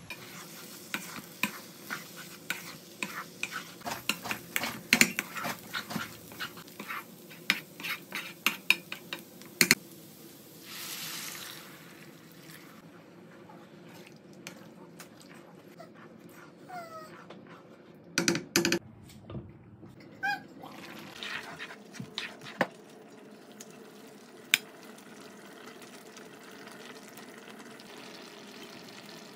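Cooking sounds in a coated frying pan. A quick run of taps and scrapes comes first. Water is poured in briefly about ten seconds in. Then there is stirring in the liquid with a wooden spatula and a few knocks against the pan.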